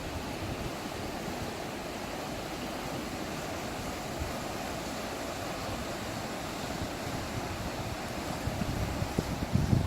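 River water rushing steadily. Wind buffets the microphone in low thumps near the end.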